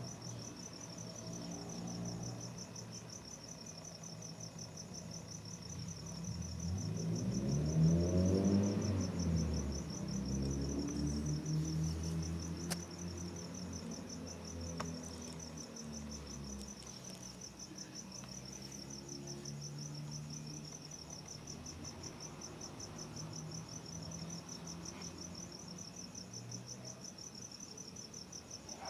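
Crickets chirping: a continuous, fast-pulsing high trill. Under it, a low background drone with gliding pitches swells and fades about eight seconds in.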